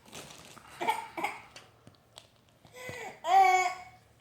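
A toddler babbling in short high-pitched vocal sounds, with the loudest cry-like call about three seconds in.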